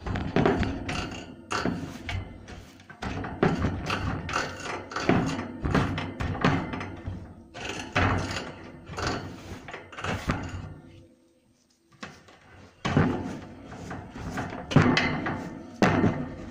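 Wood-shaving bedding being swept together in a plastic guinea pig cage base: a quick, uneven run of scraping strokes and knocks on the plastic, pausing for about a second two-thirds of the way through.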